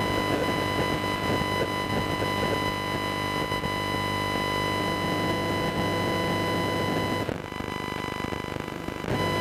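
Verizon 5G NR n2 (1900 MHz) cellular signal, received on an RTL-SDR and played as audio: a harsh, steady buzz of static carrying a stack of steady whining tones. About seven seconds in it turns quieter and duller for nearly two seconds, then comes back.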